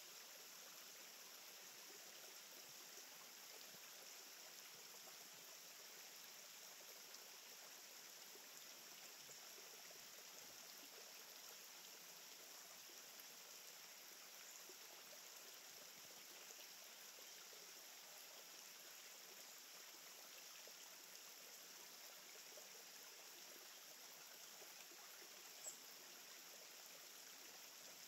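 Faint, steady rushing hiss with no distinct events; a single soft click near the end.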